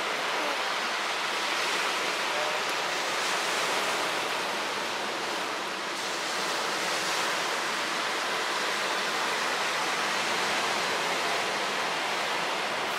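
Steady, even rushing noise of running water, with a slight dip about six seconds in.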